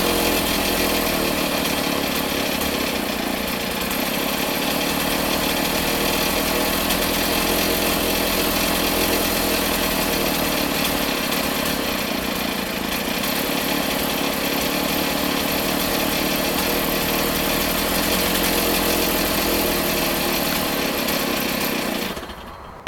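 Stihl MS 390 two-stroke chainsaw engine running steadily, then fading out near the end.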